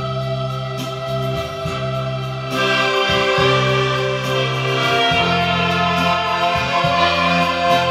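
Piano accordion playing a tune: held reedy melody notes over a bass line that moves every second or so.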